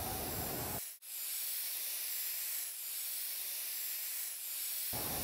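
Aerosol spray paint can hissing steadily against a wall. About a second in it cuts out for an instant, then goes on sounding thinner, with its low part gone, until near the end.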